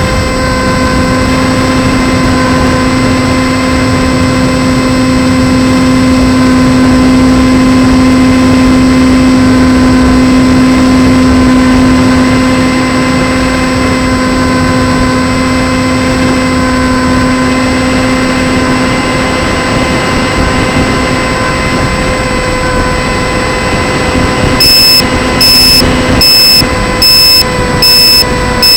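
RC plane's motor and propeller running steadily with an even hum and a rush of air noise. About 25 seconds in, a high electronic beep starts repeating a little more than once a second.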